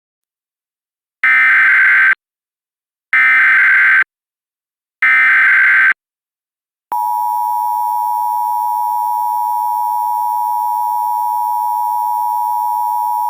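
Emergency Alert System tones: three one-second bursts of the screeching digital SAME header data, a second apart, then about a second in silence, then the steady two-tone EAS attention signal, which begins about seven seconds in and keeps sounding.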